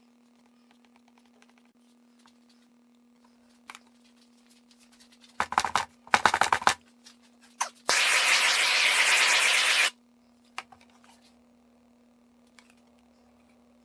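Two short rattling clatters, then a loud steady hiss of spraying or rushing air lasting about two seconds and stopping abruptly, with a few scattered clicks around it.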